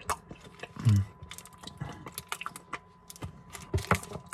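Close-up chewing and lip smacking while eating a soft chocolate nougat bar: many irregular wet clicks, with two short low hums about a second in and near the end.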